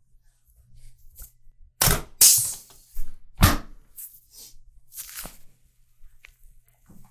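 Sharp cracks and knocks of a chiropractic adjustment. Three loud cracks come about a second and a half apart, with softer knocks and a brief rustle between them.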